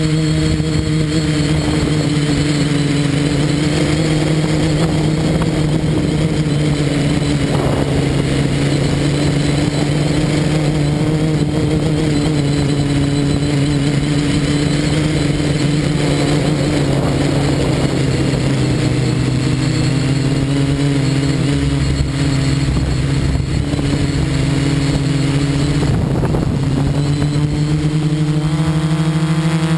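Quadcopter's electric motors and propellers whining steadily, heard from the camera mounted on the craft. The pitch wavers slightly with throttle and climbs a little near the end.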